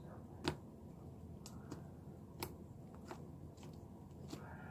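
Homemade slime being handled, giving a few scattered small clicks and pops.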